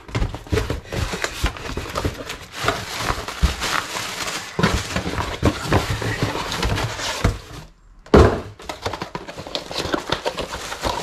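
Cardboard shipping box being opened and handled: the flaps pulled back, cardboard and packing rustling and scraping, with frequent light knocks. About three-quarters of the way through the sound drops out briefly, followed by one loud thud.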